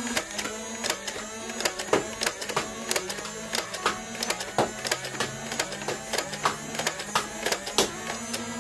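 Nerf Elite 2.0 Moto Blitz flywheel blaster's motors whirring with a steady buzz, over a string of sharp clicks at roughly two to three a second as darts are fired.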